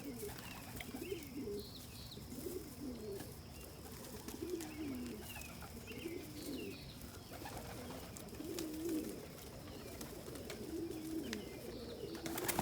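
Domestic pigeons cooing over and over, low coos that rise and fall, with faint higher chirps among them. Just before the end a sudden loud rush of wing flaps breaks out as the flock is startled and takes off.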